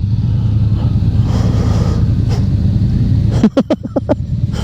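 Motorcycle engine running steadily while riding, with some wind noise. About three and a half seconds in, a quick run of five or six short voiced sounds cuts across it.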